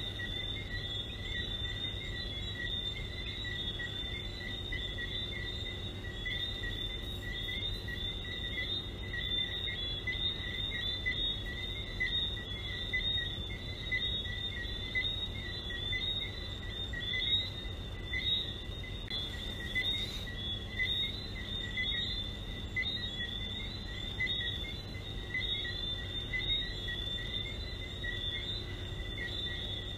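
Chorus of many small frogs calling steadily, their high chirps overlapping into a continuous high-pitched trill at two pitches, over a low steady hum.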